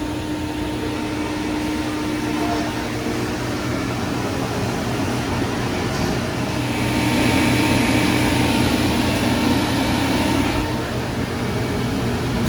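Refrigerant recovery machine running with a steady hum, pulling the remaining refrigerant out of a leaking refrigeration system. About six seconds in a rushing hiss swells up and fades again after about five seconds.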